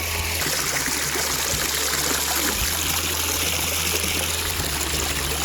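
Natural spring water trickling and running steadily in a shallow stream.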